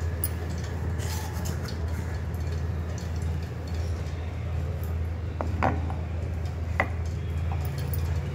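Steel spoon clinking as lentil filling is spooned onto a rolled dough round, with two sharp clinks about five and a half and seven seconds in, over a steady low hum.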